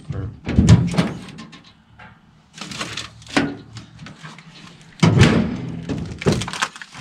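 A series of knocks and clunks from parts and tools being handled during the tank install, loudest about half a second in and again about five seconds in, with lighter clatter between.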